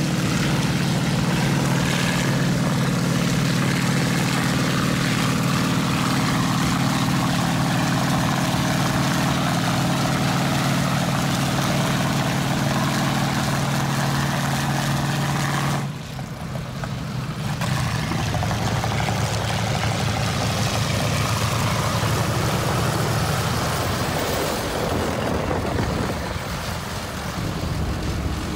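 Heavy tracked military vehicles, including an M4 Sherman tank, running on a dirt track: a loud, steady engine drone. A little past halfway the drone cuts off abruptly, and a rougher, noisier engine and track rumble carries on.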